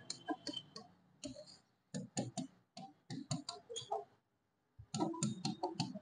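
Marker pen writing on a whiteboard: an irregular run of short taps and squeaks as the letters are stroked out, with a brief pause about four seconds in.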